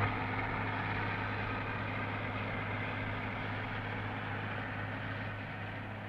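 Massey Ferguson 500 combine harvester running steadily while cutting grain: an even mechanical drone of engine and threshing machinery over a constant low hum.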